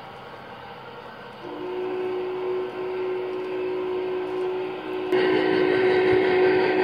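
An O scale Union Pacific Big Boy model's sound system blows a long, steady steam whistle, starting about a second and a half in, over the rumble of the model train running on the track. About five seconds in the running noise becomes abruptly louder.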